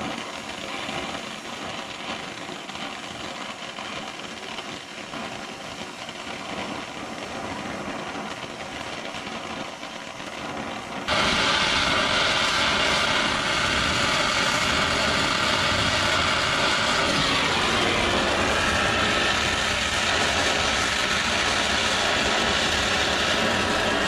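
Brazing torch flame hissing steadily while a copper refrigerant line is brazed with a rod. About eleven seconds in it suddenly becomes much louder and stays so.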